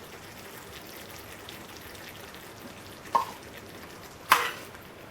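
Curry sauce with cream just added, sizzling steadily in a pan, with two sharp knocks about three and four seconds in.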